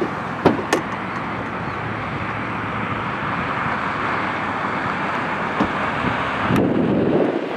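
Steady rushing rumble of a jet airliner rolling out on the runway just after landing. Two sharp clicks come about half a second in, and a gust of wind buffets the microphone near the end.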